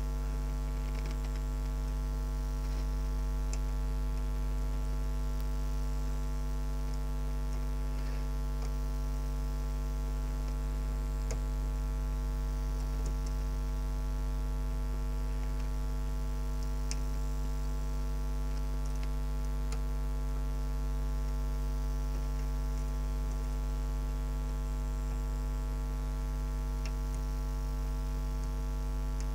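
Steady electrical mains hum throughout, with faint, scattered clicks of a lock pick working the pins of a camlock.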